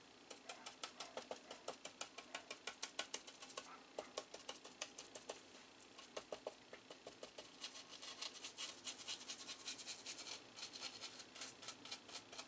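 Brush scrubbing alcohol over the solder joints of a circuit board to dissolve leftover flux, in quick short strokes about five or six a second, getting louder about two-thirds of the way through.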